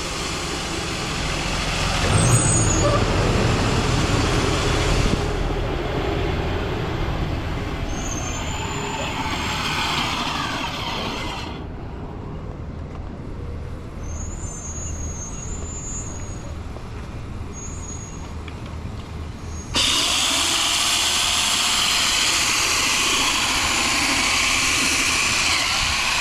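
A school bus driving past with its diesel engine running and its air brakes hissing, with brief high squeaks. About 20 seconds in, it changes suddenly to a louder, steady hiss of machine noise.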